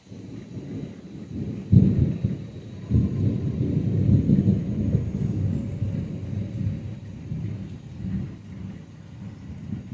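Thunder from a storm without rain: a rumble starts suddenly, a sharp crack comes about two seconds in, then a long roll that slowly dies away.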